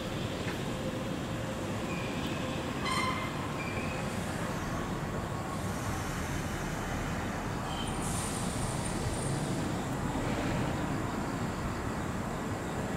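Kintetsu electric train slowly pulling into the station, a steady rumble of wheels on rail. Brief high squeals come about three seconds in and again about eight seconds in.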